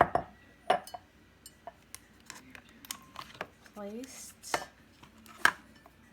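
Clicks and knocks of hands working a single-serve K-cup coffee maker, opening the brewer and setting a K-cup into its holder. The sharpest knocks come about a second in and twice in the last two seconds.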